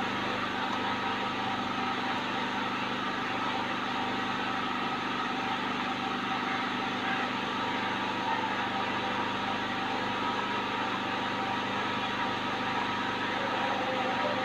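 A steady mechanical hum, several even tones over a constant hiss, unchanging throughout.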